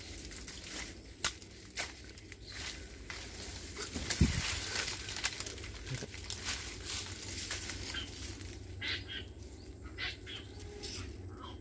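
Dry sugarcane leaves and stalks rustling and crackling as someone moves through the thicket, with a few sharper snaps in the first half.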